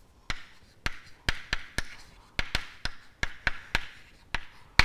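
Chalk tapping and scratching on a chalkboard as words are written: a run of sharp, irregular taps, about three a second, with faint scraping between them. The last tap is the loudest.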